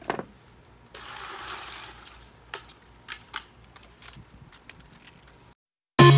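Knife and gloved hands working a fish on a plastic cutting board: a sharp knock at the start, about a second of hissing scrape, then a few light clicks and taps. After a moment of dead silence, loud electronic music starts at the very end.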